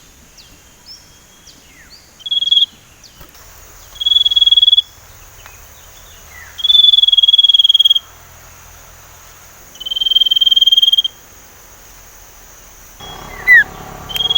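Sirtu songbird whistling: one short and then three long level notes at a single high pitch, each about a second, a few seconds apart, after some soft falling chirps. A faint steady high insect-like hum runs underneath, and a quick falling chirp comes near the end.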